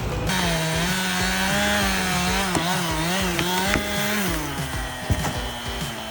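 Chainsaw running at steady high speed while cutting wood, its pitch wavering slightly; the engine note drops away about four seconds in.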